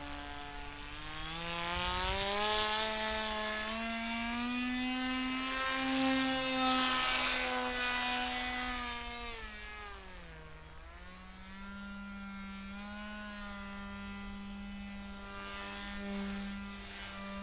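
Electric motor and propeller of an RC model paraglider's Peer XL ProUltralight pilot unit buzzing in flight. Its pitch rises about a second in, holds, dips low just after ten seconds, then settles steady again.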